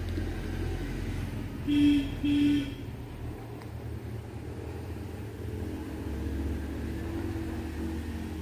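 Steady low rumble of a motor vehicle, with two short, loud honks close together about two seconds in.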